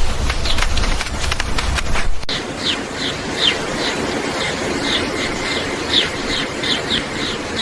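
Kittens eating, with quick wet clicks of chewing for about two seconds. Then, after an abrupt cut, come repeated short, high-pitched squeaks that fall in pitch, two or three a second.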